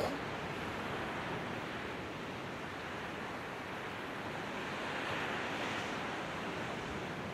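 Steady rush of breeze and distant surf from the sea below, swelling a little about five seconds in. A brief short sound at the very start.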